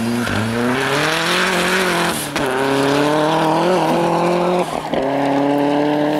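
Rally car engine at full throttle, pulling away out of a corner. Its pitch climbs and is broken twice by quick gear changes, about two and a half and five seconds in, and there is a hiss of tyres in the first two seconds.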